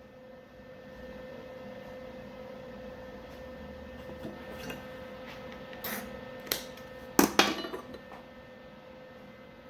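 Steel pieces clanking and clinking as they are handled, a few sharp metal knocks about two-thirds of the way in, the loudest a quick pair, over a steady hum.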